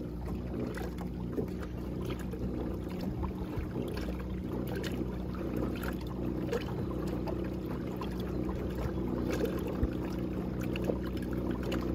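WaterSnake ASP24 12-volt, 24 lb-thrust electric trolling motor running steadily on its second speed setting, a continuous hum of several steady low tones, with the wash of water along the moving kayak's hull.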